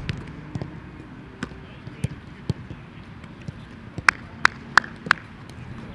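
Sharp thuds of an Australian rules football being struck during a training drill: a few scattered thuds, then four loud ones in quick succession about four seconds in.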